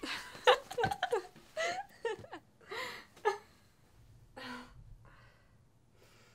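A person's voice making short, broken vocal sounds for the first three seconds or so, then one breathy sound a little past the middle.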